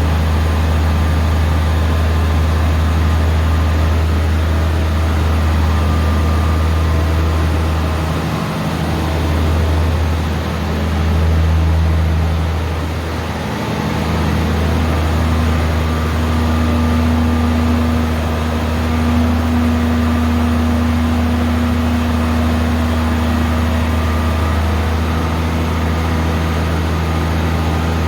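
Combine harvester's engine running steadily at idle just after starting, a low drone that dips briefly a few times in the middle, with a higher steady tone joining for about ten seconds in the second half.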